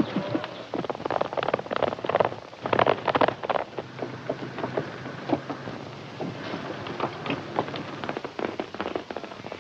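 Hurried footsteps clattering on wooden stairs and planking: a dense run of irregular knocks, heaviest about a second or two in and again near the end.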